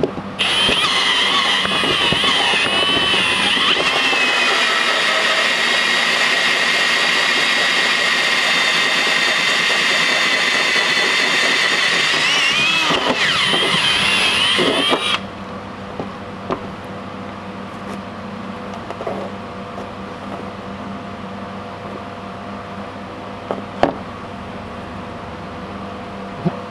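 Ridgid cordless drill spinning a hole saw through the bus's metal roof, a steady cutting whine with a high, wavering screech from the teeth. It stops suddenly about fifteen seconds in as the cut is finished, leaving a low hum and a few light clicks.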